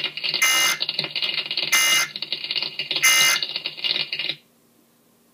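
Emergency Alert System end-of-message data signal: three short, shrill electronic bursts about a second and a quarter apart over a rough buzzing, cutting off suddenly about four seconds in.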